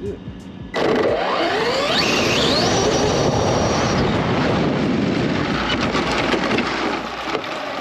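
Arrma Felony RC car on 8S, heard from a camera mounted on the car: about a second in, the Spektrum 1250kv brushless motor's whine climbs steeply in pitch as the car accelerates hard, then holds high. It is buried in loud wind and tyre noise that carries on steadily and eases off near the end.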